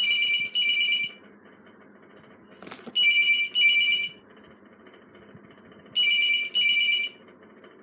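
Telephone ringing with a high, bright ring in pairs: three double rings about three seconds apart.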